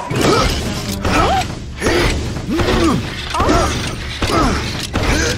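Cartoon transformation sound effects: mechanical clicking and ratcheting with tones that rise and fall about once a second, over background music.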